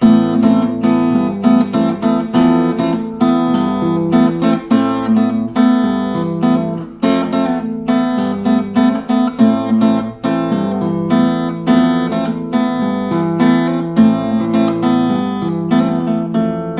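Acoustic guitar played fingerstyle: a steady bass line under it, with the open and first-fret notes on the second string picked at random above it. The notes come several a second, and the bass note changes about every second.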